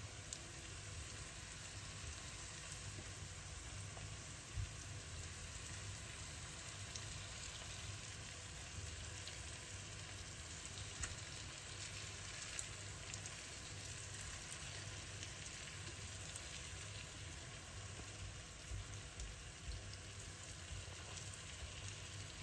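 Chicken drumsticks and onions sizzling faintly in oil in a tagine pan, a steady frying hiss with a few light clicks.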